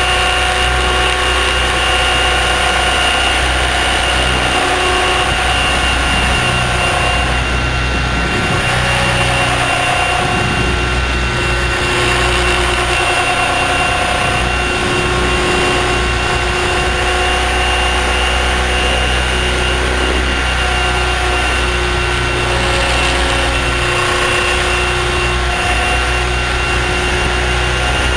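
Align T-Rex 600 ESP electric RC helicopter in flight, heard from a camera mounted on the helicopter: a steady high motor and gear whine over the low drone of the spinning rotor, holding nearly the same pitch throughout.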